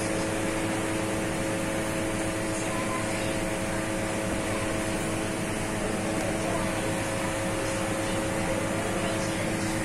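Steady hum and hiss of running bakery machinery, with a few held droning tones and no change in level.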